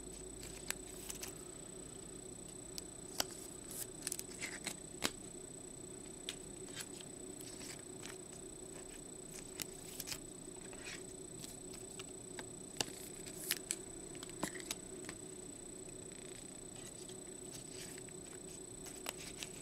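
Trading cards and clear plastic card holders being handled on a tabletop: scattered light clicks and rustles over a faint steady background hum.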